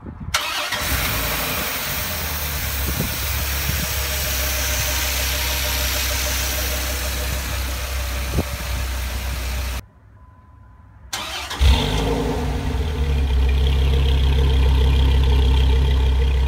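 2005 Dodge Ram SRT-10's 8.3-litre Viper V10 idling steadily. For the first ten seconds it is heard under the open hood with a strong hiss over it. After a short break it is heard at the dual exhaust tips, deeper and steadier.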